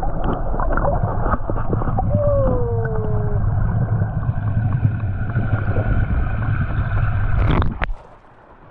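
Water running and splashing through trout-farm tanks, with a heavy low rumble. It cuts off abruptly near the end. A short falling whistle-like tone sounds about two seconds in.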